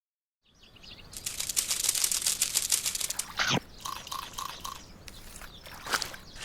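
Animation sound effects: a rapid flurry of crackling clicks, a quick swoosh, four short even beeps, then more scattered clicks.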